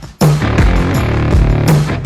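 Loud intro music with a driving beat and drums.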